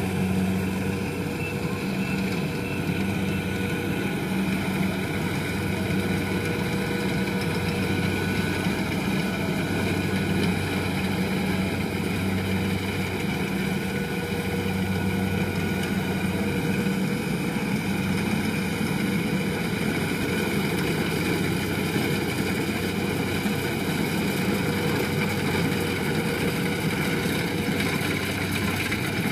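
Kubota DC70 combine harvester's diesel engine running steadily under way, a continuous low drone without change in pace.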